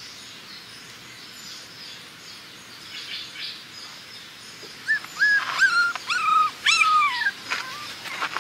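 Puppies whimpering: about six short, high whines, each falling slightly at the end, starting about five seconds in.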